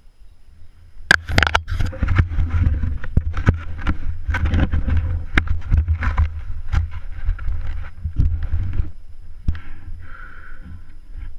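Downhill mountain bike descending a dirt trail: low wind rumble on the microphone and frequent sharp knocks and rattles from the bike jolting over bumps, starting about a second in.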